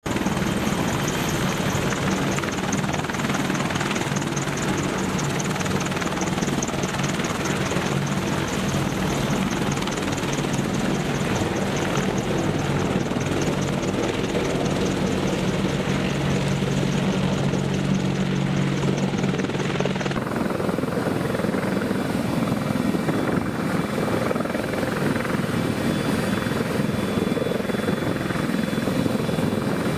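Helicopter running with a steady rotor and engine noise. About twenty seconds in, the sound changes abruptly and the high whine drops out, leaving a rougher, steady noise.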